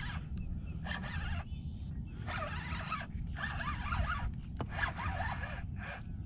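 Spinning reel being cranked in several short spurts to reel in a hooked bass, the reel's gears and line giving a raspy whirr with each turn of the handle.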